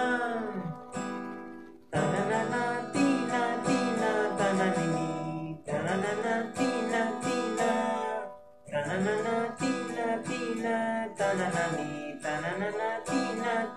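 Acoustic guitar strummed in chords, an instrumental passage between sung lines, with the strumming briefly stopping and restarting a few times.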